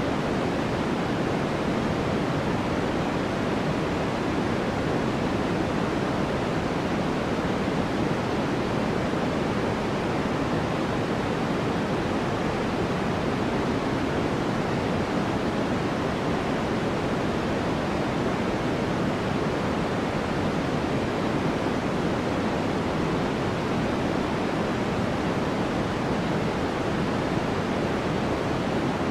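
Steady white-noise focus track: an even, unchanging hiss weighted toward the low-mids, with no distinct events.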